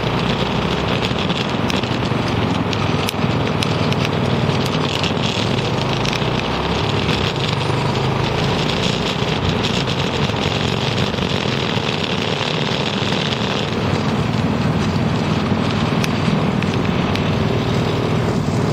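Homemade three-wheel go-kart being driven, its 6.5-horsepower single-cylinder engine running steadily under load through a small-truck four-speed transmission, with wind noise on the microphone.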